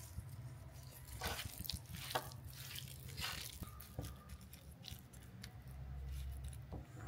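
Hands mixing raw prawns with a chilli, turmeric and salt marinade: faint, irregular soft squishing strokes.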